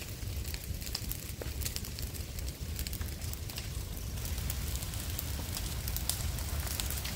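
Fire burning through felled, dried brush and logs, crackling with many scattered sharp pops over a low steady rumble.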